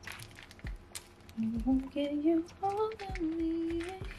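A woman humming a tune in steady held notes that start about a second and a half in, over the crinkling of a plastic zip-top bag being handled and squeezed full of icing.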